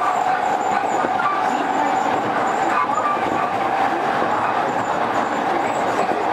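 JR East E231-series electric train running at speed: a steady noise of wheels on rail with a constant tone running through it.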